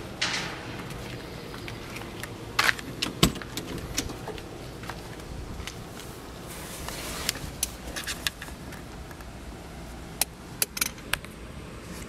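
Scattered sharp clicks and jingling rattles from handling around the car's cabin, over a low steady hiss. The loudest click comes about three seconds in, and a cluster of quick clicks comes near the end.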